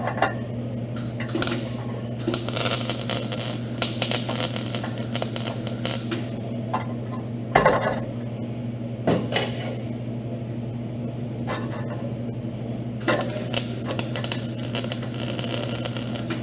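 Welder laying short tacks and stitch welds on a car's sheet-metal cowl panel: irregular arc crackle and spatter that starts and stops, over a steady electrical hum. A couple of louder pops come about halfway through.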